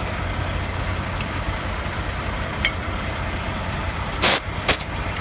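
Steady low hum of an idling truck, with two short, loud hisses of air about four seconds in as a tire pressure gauge is pushed onto a truck tire's valve stem.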